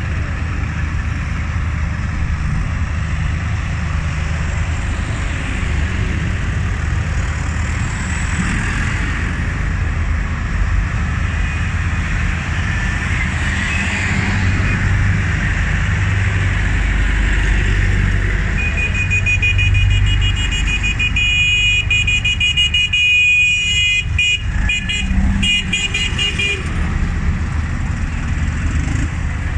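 Diesel tractors driving slowly past one after another, their engines running with a low rumble that swells as the nearest one goes by. Past the middle a vehicle horn sounds, held steady for several seconds.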